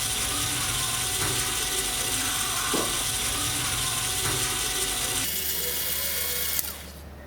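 Small motor-driven gears of a miniature model concrete mixer running with a steady mechanical whir and gear rattle. The sound changes about five seconds in and drops much quieter near the end.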